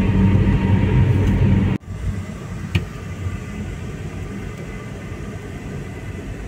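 Road and engine noise inside a Toyota Calya's cabin at highway speed, a loud steady low hum. A little under two seconds in it cuts to much quieter cabin noise as the car rolls slowly, with a single click about a second later.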